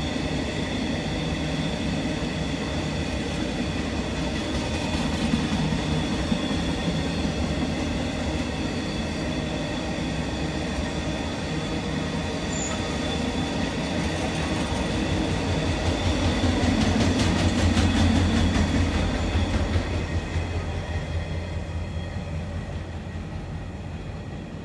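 Container freight wagons rolling past on the main line: a steady rumble of wheels on rail with a steady high whine from the wheels. A rapid clatter over the rail joints grows loudest a little over two-thirds in, then the sound fades as the last wagons go by.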